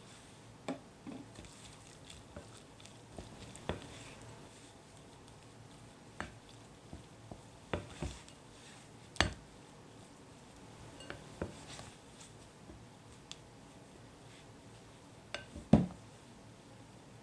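Wooden spatula stirring thick churro dough in a glass mixing bowl, with scattered knocks and taps of the spatula against the glass, the loudest about nine seconds in and near the end.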